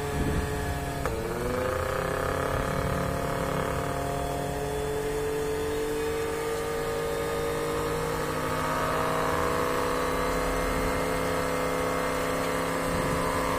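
Blender motor spinning a blade assembly whose bushing has just been fitted with a new bearing, running steadily. Its pitch dips about a second in, then climbs slowly as the new bearing and bushing run in and the assembly frees up and speeds up.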